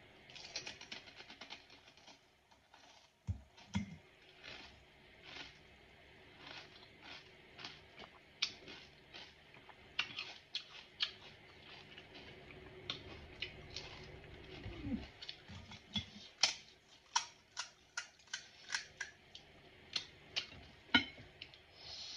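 Close-up eating of pani puri: crisp puri shells crunching between the teeth as they are chewed, heard as irregular sharp crunches and mouth clicks, about one or two a second.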